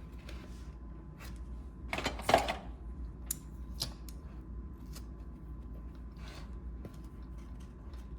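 Scissors cutting leather: a quick cluster of snips about two seconds in, followed by a few light, separate clicks.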